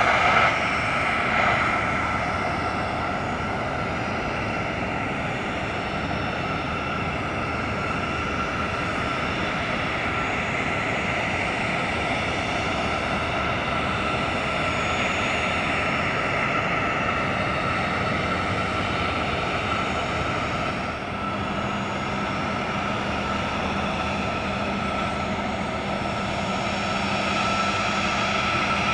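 Sikorsky S-92A helicopter's turbines running on the ground during startup: a steady high whine over a rushing hiss. About two-thirds of the way through, a lower steady hum joins in.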